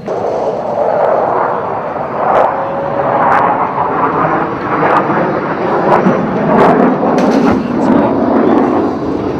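Pair of Thunderbird F-16 Fighting Falcon jets taking off: a loud jet roar that comes in suddenly and holds, crackling with sharp cracks throughout.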